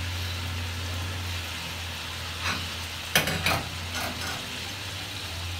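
Meatball curry sizzling in a large aluminium pot on a gas stove, over a steady low hum. A few sharp metal clanks come about halfway through as the pot is shaken on the burner grate so the meatballs don't break.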